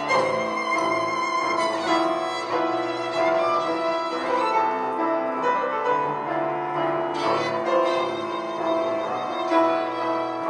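Live tango music from a trio of violin, piano and double bass, the violin prominent with long held notes over the piano and bass.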